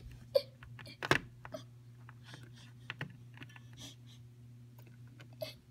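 Small plastic Littlest Pet Shop figures being handled and set down, giving a scatter of light clicks and taps with a sharper knock about a second in. A low steady hum runs underneath.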